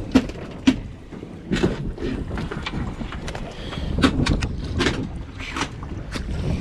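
Wind buffeting the microphone on a small boat, with a series of sharp knocks and taps scattered through it.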